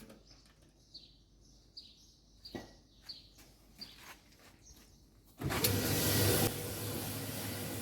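A series of short high beeps or clicks from the control panel as an option is selected, then about five and a half seconds in the Speed Queen commercial dryer starts abruptly and runs steadily, motor and drum turning with a low hum. It runs without the loud abnormal noise it made before, the sign that the new drum idler pulley and bearing slide kit have cured it.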